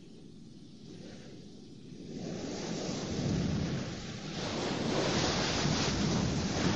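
Cartoon sound effect of sea surf on a rocky shore: a rushing wash of water that is faint at first, swells louder about two seconds in, eases briefly and rises again.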